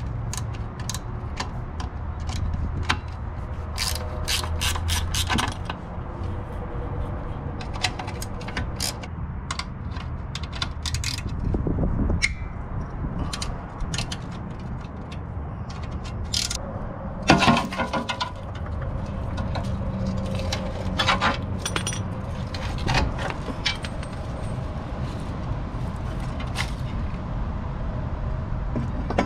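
Ratcheting wrench clicking in quick runs, several times over, as nuts are worked off the rusty threaded rods of an ATV plow mount plate, with scattered metal clinks and knocks between the runs.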